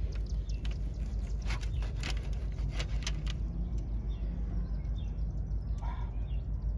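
Knife and fork cutting grilled chicken breast on a foil-lined tray: a series of sharp clicks and scrapes in the first half, over a steady low background rumble.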